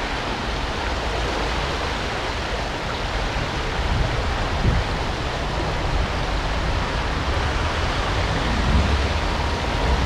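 The River Uck in spate, its swollen flow rushing steadily, close to flood level.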